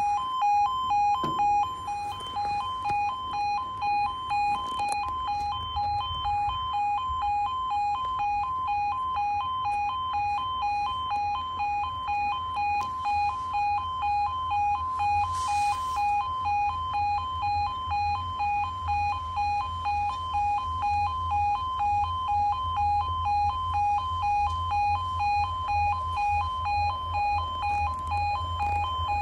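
Level crossing warning alarm sounding while the barriers are down: a two-tone electronic alarm pulsing rapidly and steadily. A low rumble builds underneath from about five seconds in.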